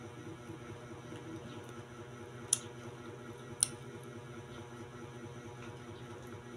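Steady low room hum, with two sharp, short clicks about a second apart near the middle.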